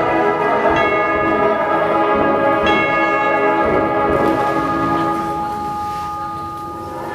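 Bell-like struck metal tones ringing together, with fresh strikes about one and three seconds in, then the ringing slowly fades near the end.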